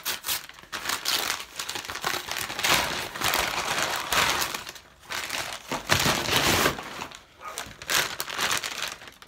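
Paper packaging and a plastic food packet crinkling and rustling as they are handled and pulled open, in irregular crackles with a couple of short pauses.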